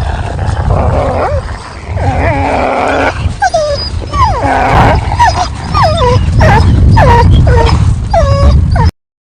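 Wolves yipping and whining in quick, short calls that bend and fall in pitch, over a low steady rumble. The sound cuts off suddenly near the end.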